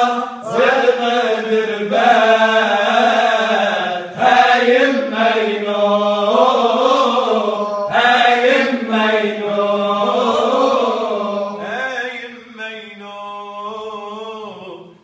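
Male vocal group singing a nasheed a cappella: a melody with long sliding notes over a steady low held drone note, in phrases of about four seconds. The singing becomes quieter about twelve seconds in.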